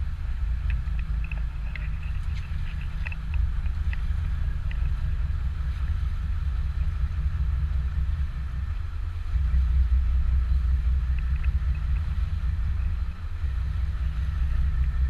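Low, steady rumble of a boat under way, with wind buffeting the microphone; the rumble dips briefly twice.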